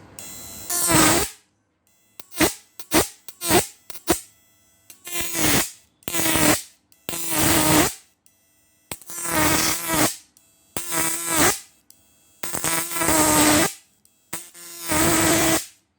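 A 12 V to 1200 V AC electric fishing machine (a high-voltage inverter) buzzing harshly in repeated bursts as it is fired on and off: first a run of very short quick bursts, then longer ones of about a second each.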